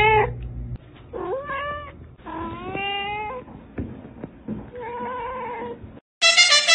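A cat meowing repeatedly: the tail of one loud meow, then three more meows about a second apart, the last one steadier and lower. Music starts suddenly just before the end.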